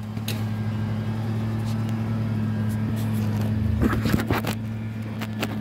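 A steady low hum, two pitches held without change, with a short cluster of clicks and knocks about four seconds in, like tools or parts being handled.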